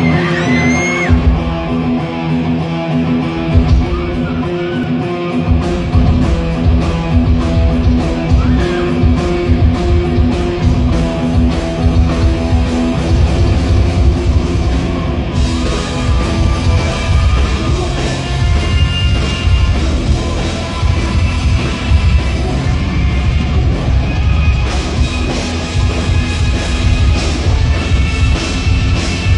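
Rock music with an electric guitar playing a solo.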